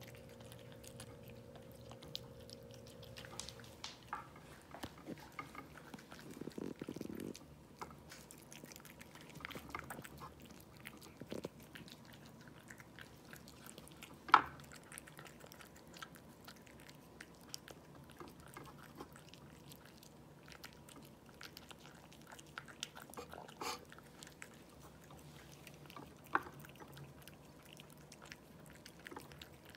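Cats eating wet canned cat food from a ceramic bowl: faint chewing and biting with many small clicks, and one sharp click about halfway through.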